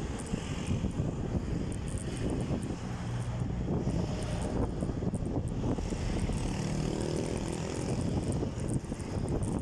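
Traffic heard from a bicycle: a nearby motor vehicle's engine drones, strongest about three seconds in and again in the second half, over a steady rumble of wind on the microphone.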